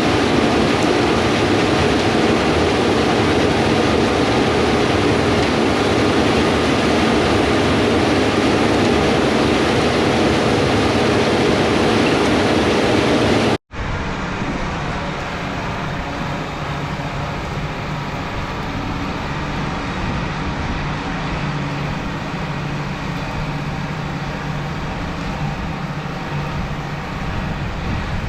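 Harvest machinery running steadily, most likely a Gleaner S98 combine at work. About 13 seconds in, the sound cuts off abruptly and is replaced by a quieter, steady engine hum.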